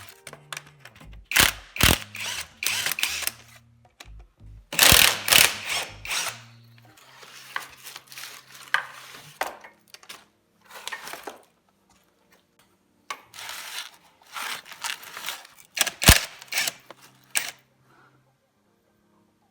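Repeated short bursts of mechanical clicking and rattling from hand tools at work on a motorcycle engine, over quiet background music.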